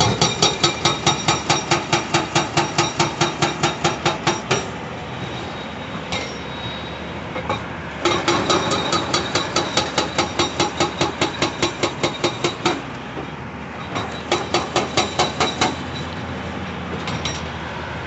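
Hydraulic breaker on a CAT 349E excavator hammering rock in rapid, even blows of about five a second with a metallic ring, in three runs separated by pauses in which the excavator's diesel engine runs on its own.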